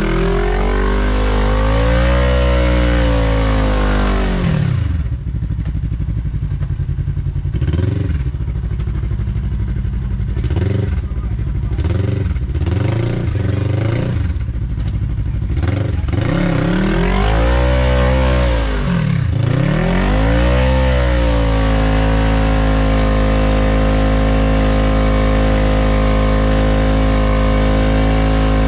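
Side-by-side UTV engine revving up and down in long swells, then blipped in short bursts of throttle for several seconds, then revving twice more before settling into a steady, unchanging note for the last several seconds.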